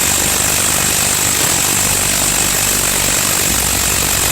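A power tool running steadily and loudly, with no change in speed.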